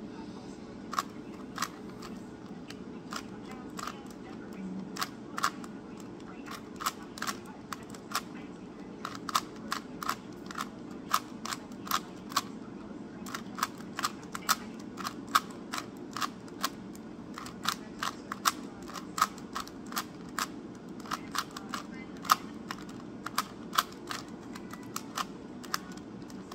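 3x3 Rubik's cube being turned by hand: sharp plastic clicks as its layers are twisted and snap into line, coming in irregular runs of a few a second.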